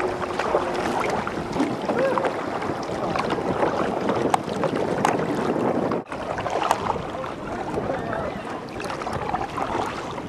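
Water splashing and lapping around a small boat's hull on open water, with wind on the microphone. The sound drops out for an instant about six seconds in.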